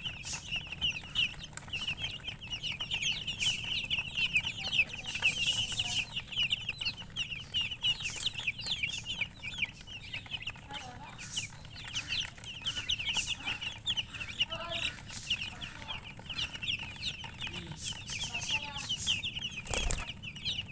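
A flock of chicks peeping continuously in rapid, overlapping high chirps, with a hen's lower clucks in the middle stretch. A single sharp knock sounds near the end.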